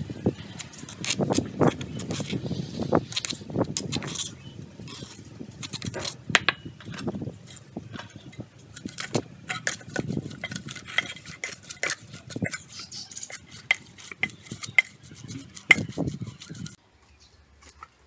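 A metal spoon scraping herb paste off a stone pestle and mortar, then clinking and scraping against an aluminium bowl as small fish are mixed with the paste and leaves. The sound stops abruptly near the end.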